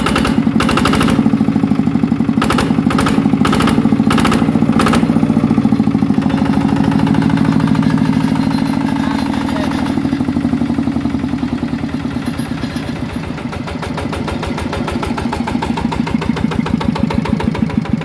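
Yanmar TF120 DI single-cylinder diesel engine of a walking tractor running steadily with a fast, even chugging pulse. A few sharp clicks or knocks sound over the first five seconds, and the engine runs quieter for a while in the middle before getting louder again near the end.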